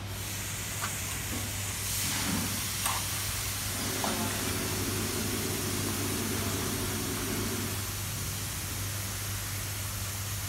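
Robin RTG 200LH 2-inch water pump's small petrol engine running at a steady speed, with a constant hiss over it.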